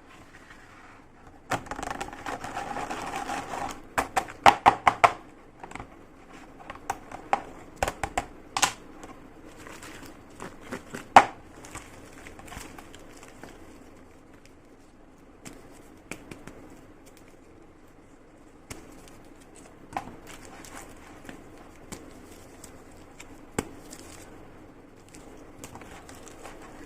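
Slime and its plastic packaging being handled: a crinkling, rustling stretch near the start, a quick run of sharp clicks and pops just after, then scattered single clicks.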